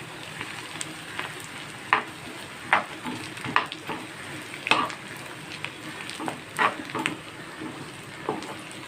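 Flour-coated bitter gourd pieces sizzling in hot oil as they deep-fry, with a steady hiss. A ladle scrapes and knocks against the pan every second or so as the pieces are stirred.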